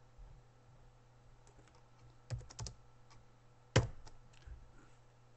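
Computer keyboard typing: a few scattered keystrokes, a quick run of several about halfway through, and one sharper, louder key press a little later, over a faint low steady hum.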